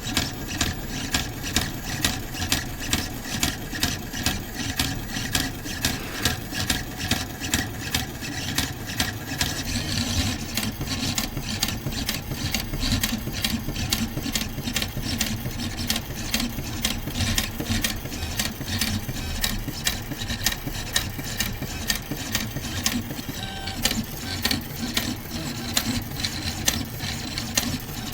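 Pen plotter drawing with a fineliner pen: its stepper motors run with regular clicking, about two clicks a second at first. After about ten seconds the clicking becomes quicker and less even.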